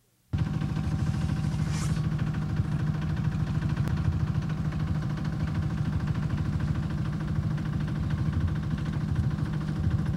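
A sailboat's auxiliary inboard engine running steadily at low speed, giving an even low drone.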